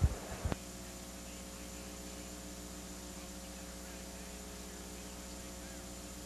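Two short clicks within the first half second, then a steady electrical mains hum and buzz with hiss on the audio line.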